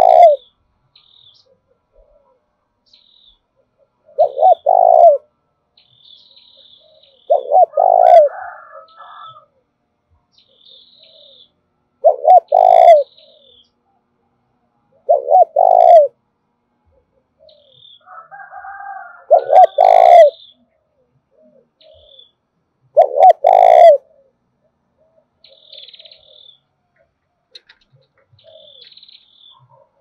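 Spotted dove cooing close to the microphone: short, loud phrases of two or three low notes, repeated about every three to four seconds. This is the driving 'thúc' coo that keepers use from a decoy bird to provoke wild doves. Faint high chirps of small birds come between the phrases.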